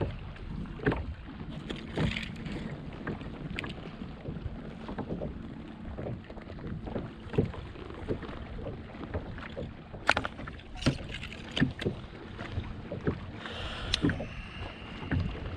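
Small waves lapping against a fishing kayak's hull, with irregular sharp knocks and clicks from rod and gear being handled. A brief higher rasp comes near the end.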